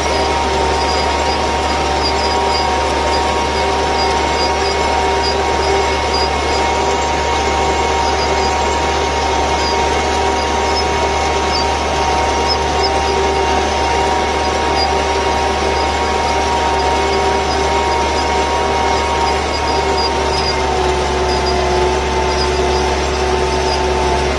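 MTZ 820.2 tractor's diesel engine running steadily under load while pulling a mounted plough, with a constant high whine over the engine sound. The whine dips slightly in pitch about twenty seconds in.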